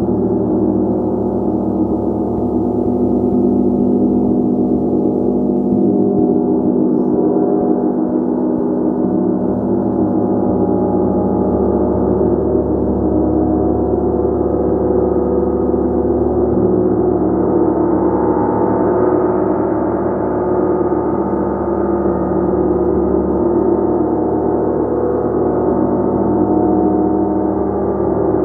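A gong played continuously in a sustained, shimmering wash of many overlapping tones, with no separate strikes standing out; the tone brightens a little about two-thirds of the way through.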